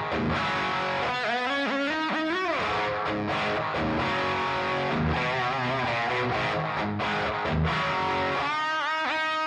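Electric guitar played through a cranked Marshall DSL20C valve combo, attenuated by a Universal Audio OX and picked up by a Shure SM57: an overdriven lead line with string bends. Near the end a note is bent up and held with vibrato.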